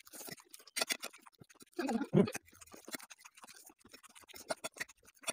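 Forks clicking and scraping on plates while noodles are eaten, with chewing and slurping; a short, louder mouth sound about two seconds in.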